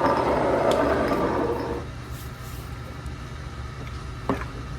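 A condiment shaker, likely grated cheese, shaken over a slice of pizza for about two seconds, over a steady low hum, with a single knock near the end.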